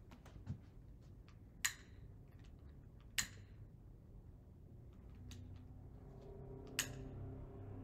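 Sharp clicks of a lighter being struck to light a chalice: three loud clicks, the first two about a second and a half apart, among a few fainter ones, over a quiet room hum.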